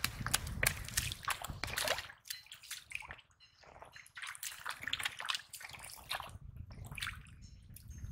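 Wet mud squelching and shallow muddy water sloshing and splashing as feet and hands work through it, in irregular smacks and drips.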